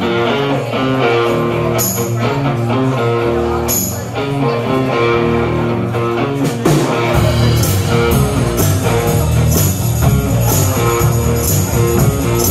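Live rock band playing an instrumental intro, led by a repeating electric guitar riff. The bass and drums fill out much heavier about seven seconds in.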